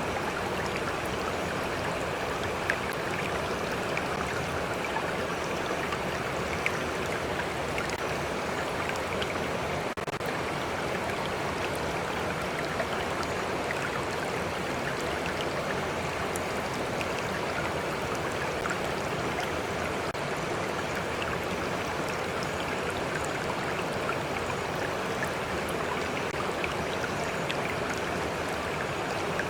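A stream of water flowing steadily and evenly, with small splashes and drips scattered through it.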